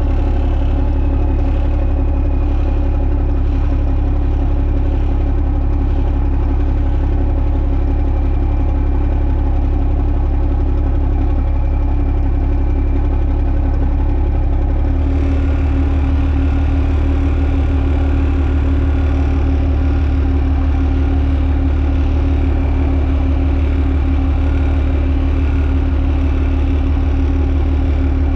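Semi tractor's diesel engine running steadily near idle while the rig creeps along. Its note gets a little fuller and harder-working about halfway through.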